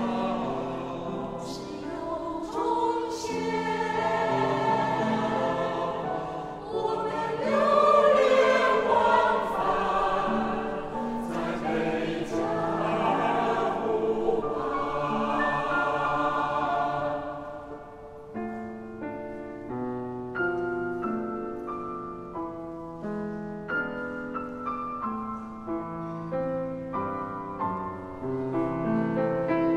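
Mixed choir of men's and women's voices singing with piano accompaniment; a little past halfway the voices stop and the Steinway & Sons grand piano plays on alone, note by note.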